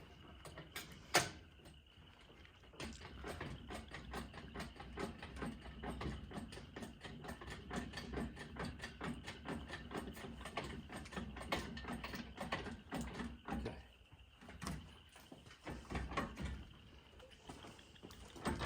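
Irregular metallic clicking and rattling, dense for about ten seconds after a single sharp click, as an engine and transmission are raised and worked free on a hoist.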